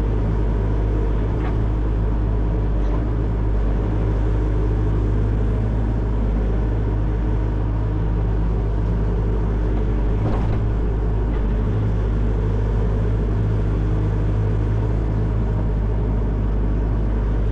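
Excavator's diesel engine running steadily with a deep, even hum, with a brief faint crack about ten seconds in.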